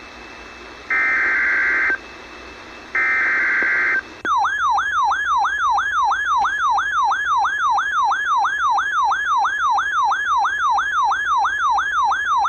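Emergency Alert System SAME header from a Sage EAS encoder-decoder: two one-second bursts of data tones a second apart, marking the start of a new alert. About four seconds in, the attention signal follows, a loud warbling, siren-like tone sweeping up and down about three times a second.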